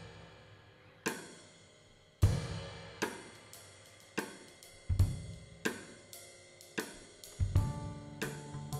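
Jazz drum kit playing sparse, open cymbal strikes with bass drum and snare accents, the cymbals ringing on between hits, which come roughly once a second and closer together later. About seven seconds in, double bass and piano notes join.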